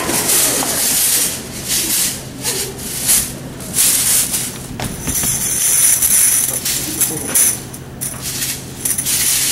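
Tambourine shaken and struck, its jingles rattling, with sharp hits about once a second.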